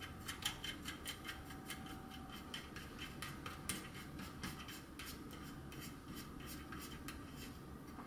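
Faint, irregular small clicks and rubbing as fingers handle wires and small plastic parts inside the metal body of a DF64 gen 2 coffee grinder, fitting a new power button. The clicks come thicker in the first half and thin out later.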